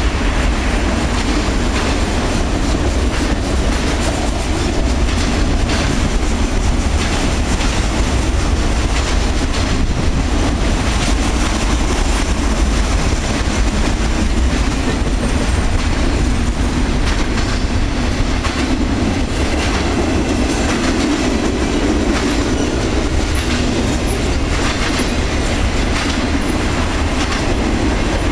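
Freight train's autorack and intermodal cars rolling steadily past: continuous wheel-on-rail rumble with wheels clicking over the rail joints.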